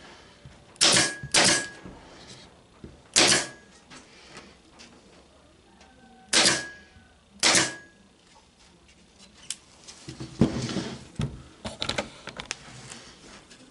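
Pneumatic pin nailer firing five times, each shot a sharp snap, two close together near the start, one at about three seconds and two more a second apart past the middle, driving pins through the face of a wooden frame's joints. A few lighter knocks and rattles follow near the end.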